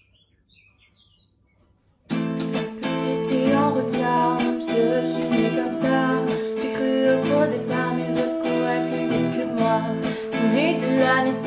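Near silence, then about two seconds in a pop-rock band's instrumental intro starts abruptly: strummed guitar over drums, with held melodic notes on top.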